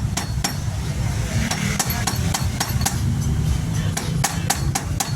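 A hammer tapping metal parts of a mountain bike headset during a headset bearing replacement: a dozen or so sharp, irregular strikes over a steady low rumble.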